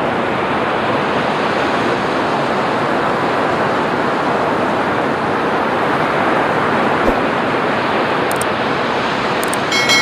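Ocean surf breaking and washing up a sandy beach: a steady, even rush of waves. Near the end come a few soft clicks and the start of a short chime.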